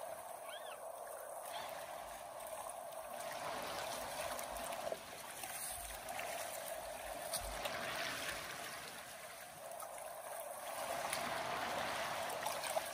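Steady rushing of the Kenai River's current flowing past.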